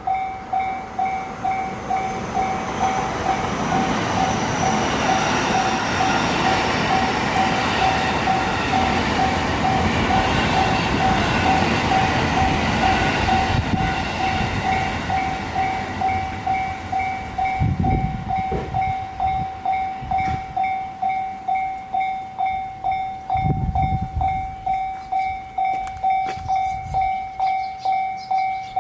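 Japanese railway level crossing's electronic warning bell clanging steadily, about one and a half strokes a second, while a train rumbles through the crossing. The train is loudest from about four to fourteen seconds in, then fades, leaving the bell. A couple of short low thumps come later.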